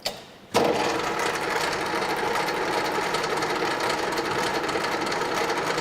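Centre lathe switched on: a click, then about half a second in the motor and headstock start abruptly and run on at a steady speed, the spindle turning the workpiece held between chuck and centre.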